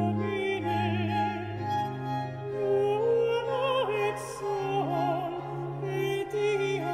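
Countertenor singing with a wide vibrato, accompanied by a string quartet of two violins, viola and cello, the low strings holding long notes beneath the voice.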